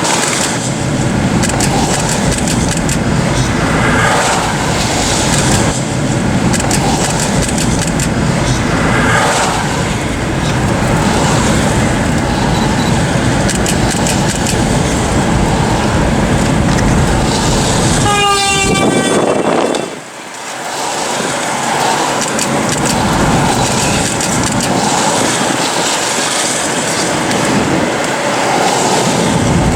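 Loud, steady rumble of wind and the nearby EF5 tornado, of the kind often likened to a freight train. About two-thirds of the way through, a pitched tone falls steeply in pitch.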